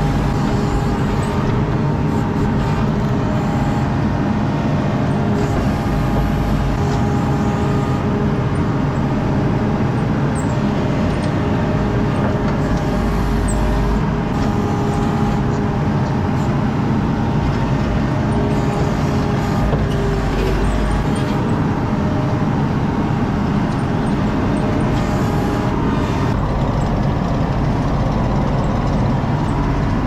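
ASV RT-40 compact track loader's diesel engine running steadily, heard from inside the cab while the bucket pushes and grades loose dirt. The low end swells briefly every few seconds as the machine takes load.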